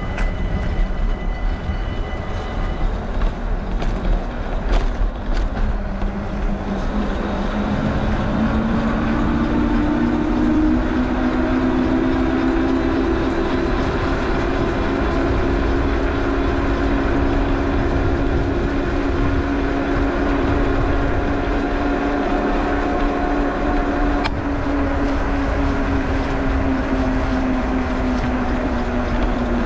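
An electric train runs on the line alongside. Its motor whine rises in pitch from about six seconds in and then holds steady, over a constant rush of wind and tyre noise from the moving bicycle.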